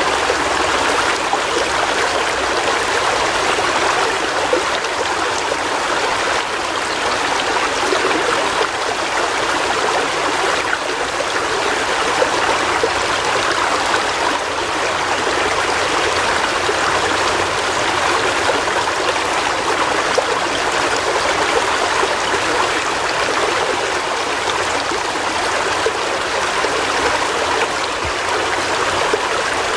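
River water flowing and rushing steadily, a constant even burble.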